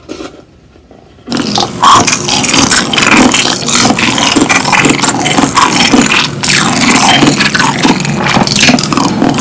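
Very loud, close crunching and scraping of cereal being chewed, starting suddenly about a second in and going on steadily as a dense, irregular clatter.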